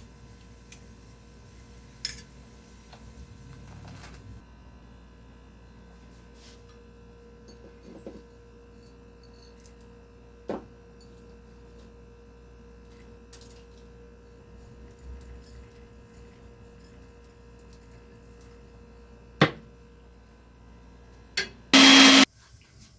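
Kitchen sounds while cooking: a steady low hum with a few scattered knocks and clinks, and a short, loud burst of noise near the end.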